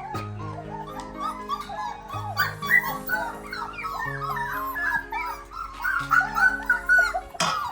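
Dogs whining and whimpering in many short, high, wavering cries, over background music with steady held notes. A sharp knock sounds near the end.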